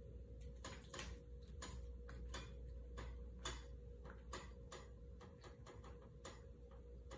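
Faint, irregular light clicks and crinkles of plastic wrap being handled over a banana leaf, a few a second, over a steady low hum.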